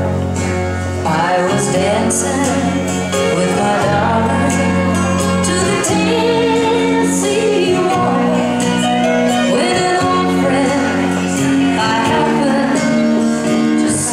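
Waltz music with a singer.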